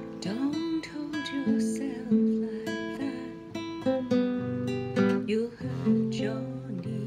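Acoustic guitar strummed and picked through a chord pattern, with a woman's voice singing along.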